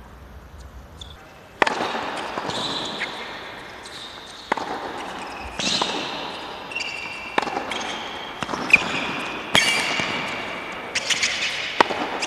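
Tennis rally on a hard court: racket strokes and ball bounces as sharp smacks about once a second, starting about a second and a half in, with short high sneaker squeaks on the court surface between shots.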